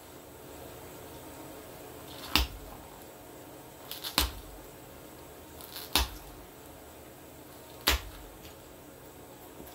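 Knife cutting through leather in short strokes, each stroke ending in a sharp snap, four times about every two seconds, some with a smaller click just before.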